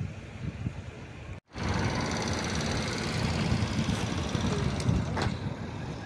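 Wind buffeting the microphone, a rough, uneven low rumble, broken by a brief total dropout about a second and a half in, after which it comes back louder.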